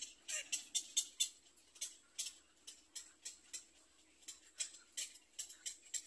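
Black-crowned night heron nestling calling in a quick run of short, sharp high-pitched ticks, about four or five a second and unevenly spaced, the clicking begging call of a young night heron in the nest.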